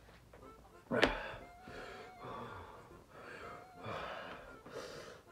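A man breathing hard and gasping, roughly a breath a second, with one sharp, loud gasp about a second in. This is his reaction to the burn of Carolina reaper-infused gummy bears.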